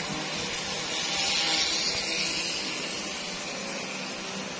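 Model train running along sectional track, its small electric motors whirring and its wheels rolling on the rails: a steady whirring hiss that swells as the cars pass close, then eases off as the train moves away.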